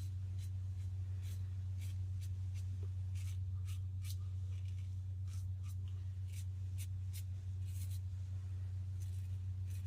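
Short, crisp scraping strokes of a Kampfe single-edge razor cutting lathered stubble, about two or three a second in irregular runs. This is the against-the-grain pass. A steady low hum runs underneath throughout.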